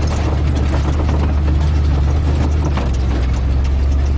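Off-road 4x4 driving over a rough track, heard from inside the cab: a steady low engine drone with the body and loose gear rattling and knocking over the bumps.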